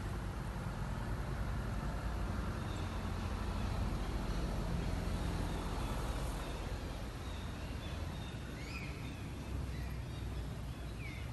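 Steady low outdoor rumble with a faint hiss, easing a little past the middle, with a few faint short high chirps near the end.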